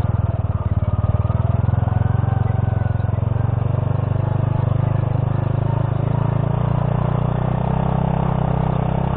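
Honda C70's small single-cylinder four-stroke engine running steadily at low revs under way on a rough gravel track. Its pitch rises slightly about three-quarters of the way through.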